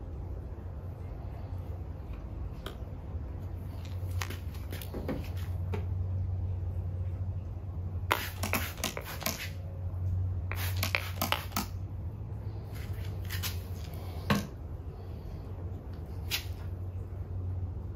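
Hand trigger spray bottle spritzing solution onto a car headlight: two quick runs of sprays, one about 8 seconds in and another about 11 seconds in. Small handling clicks and taps sound in between, over a steady low hum.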